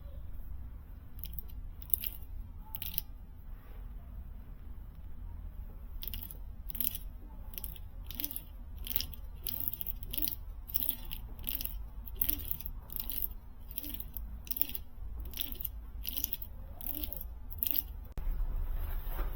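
Workshop handling of the hub motor's parts: a regular run of short, sharp scraping clicks, about two a second, starting a third of the way in and stopping near the end, over a low steady hum.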